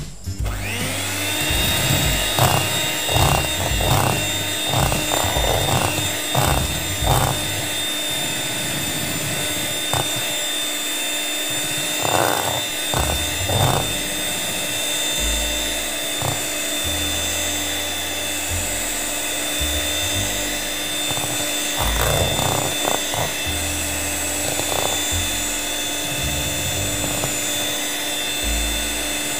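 Electric hand mixer spinning up about half a second in, then running at a steady speed with a whirring whine, its beaters whipping egg whites in a stainless steel bowl. The beaters now and then knock and rattle against the bowl.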